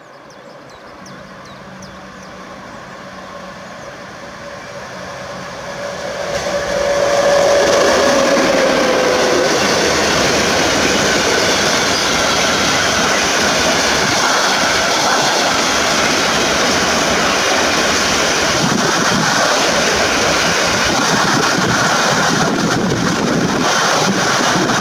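EU07 electric locomotive approaching and passing at the head of a freight train of car-carrier wagons loaded with vans. The sound grows for about seven seconds, with a brief falling whine as the locomotive goes by, then settles into the steady rolling and rattling of the loaded wagons on the rails.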